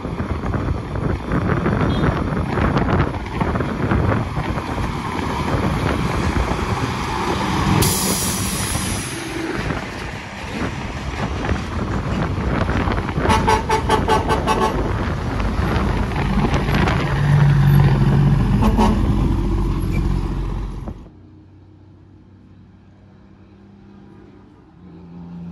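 Heavy truck on the road, engine and road noise running loud, with a hiss of air about eight seconds in and horn toots later on. The sound then drops off suddenly to a low hum.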